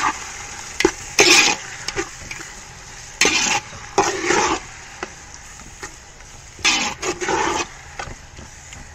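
A metal spatula scrapes and stirs around a large aluminium pot of onion, tomato and yogurt masala as it fries, in repeated short strokes. A steady sizzle of frying runs underneath.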